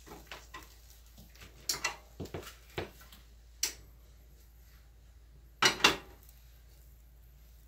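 Kitchen utensils and cookware knocking and clattering: a scattered run of light knocks, then two loud knocks in quick succession near the end.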